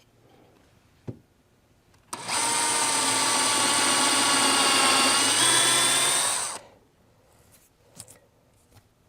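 Drill with a 1/32-inch bit running steadily for about four and a half seconds, boring a pilot hole for a brad in a maple drawer front. Faint clicks come before and after it.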